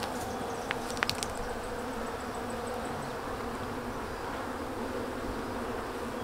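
Honey bees buzzing in a steady, dense hum around an open nuc box full of frames, with a few light clicks about a second in.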